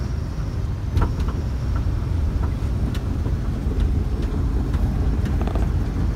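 Diesel truck running on the road, heard from inside the cab: a steady low engine and road rumble with a few faint light clicks.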